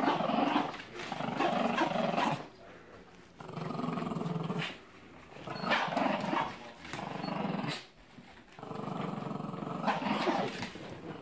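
Dogs growling in play while tugging on a rope toy. The growls come in four long bouts of one to two seconds each, with short pauses between them.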